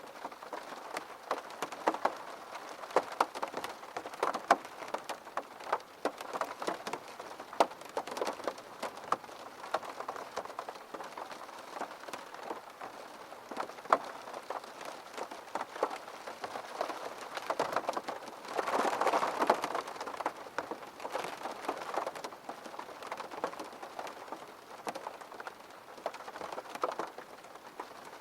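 Steady rain with many distinct drops pattering on a hard surface. There is a brief heavier surge of rain about two-thirds of the way through.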